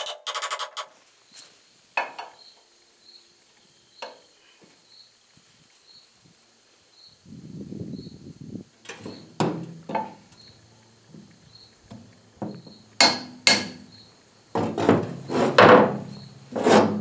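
A steel shaft being worked through a bush hog tail-wheel fork and hub: a short metal scrape, then scattered metal knocks and clanks that come thicker and louder near the end.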